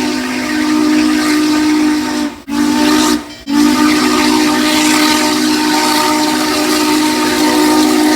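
Train horn sounding a steady held chord, broken by two brief gaps about two and a half and three and a half seconds in, then held again.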